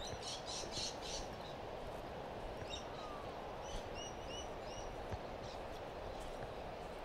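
Small birds chirping in short, high, repeated notes, a quick run of about four near the start and another about four seconds in, over a steady background hiss.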